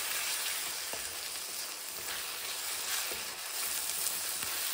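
Grated tomato and onion masala sizzling in mustard oil in a steel kadhai, stirred with a wooden spatula that scrapes the pan a few times. The tomatoes are cooking down in the oil.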